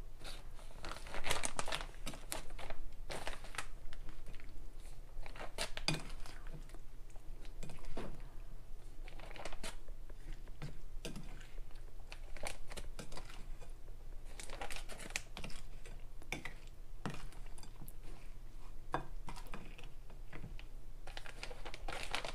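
Spoon scooping sliced apple pie filling out of a bowl into a plastic gallon freezer bag: the bag crinkles in irregular spells, with scattered clicks and scrapes of the spoon against the bowl.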